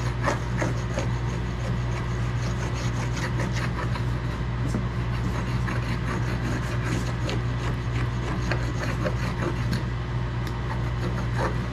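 Hand laminating roller rolling over peel ply on wet carbon fiber, a scratchy rubbing with many small ticks, pressing the weave tight and drawing excess resin up through the peel ply. A steady low hum runs underneath.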